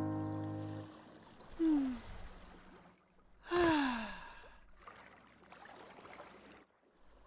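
A piano note dies away in the first second. Then a cartoon man gives two falling, contented sighs, a short one and a longer, louder 'ahh' about three and a half seconds in, over a faint steady wash of sea.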